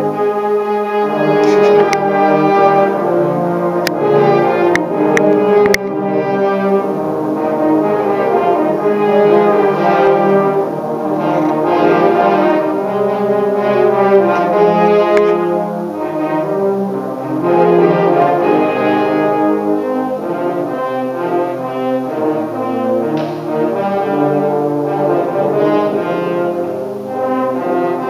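A large brass ensemble playing live, with full chords and moving lines in the low and middle brass. A few faint clicks come about two to six seconds in.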